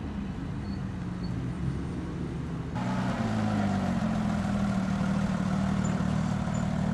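Sports cars rolling slowly past at low revs: a BMW E46 M3's straight-six, then, after a cut about three seconds in, a Porsche 997 GT3's flat-six running steadily and a little louder.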